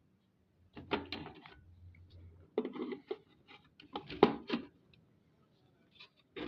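Clicks and knocks of a plastic surge-protector housing being handled and worked on during disassembly, in four short bursts.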